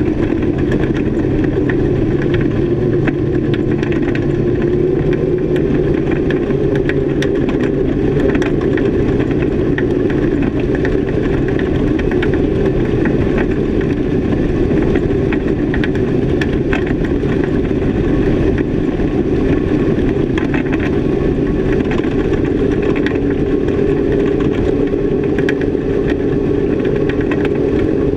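Twin Honda 225 V6 four-stroke outboard motors running steadily at cruising speed under way, with a slight rise in pitch near the end.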